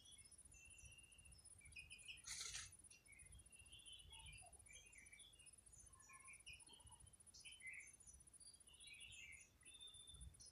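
Faint chirping of small birds: many short, high chirps scattered throughout, with a brief rustle about two and a half seconds in.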